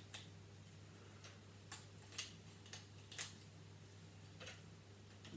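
Lego bricks clicking as they are handled and pressed onto a build: about seven light, sharp clicks at irregular intervals, over a faint steady low hum.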